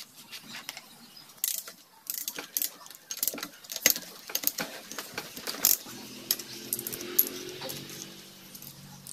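Metal tools and engine parts clinking and knocking on the cylinder head as a ratchet wrench takes off the valve tappet cover: scattered sharp clicks. A faint steady hum comes in about six seconds in.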